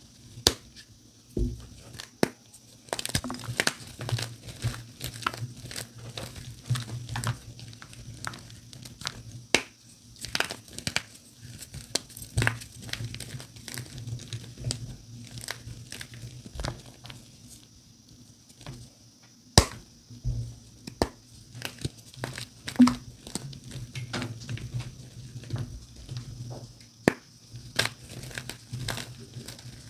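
Blocks of dyed gym chalk crunching and crumbling as they are squeezed and snapped apart by hand. Irregular sharp snaps come through dry, gritty crumbling, with the loudest snaps a little past two-thirds of the way through.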